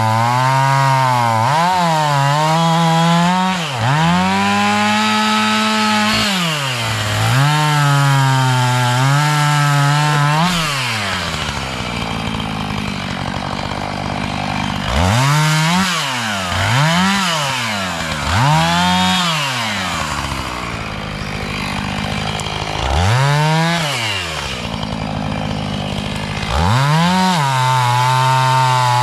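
Two-stroke chainsaw cutting wood, running at high revs with the pitch sagging and recovering under load. The throttle is released and squeezed again several times, and the saw drops back to a lower idle for a few seconds twice near the middle.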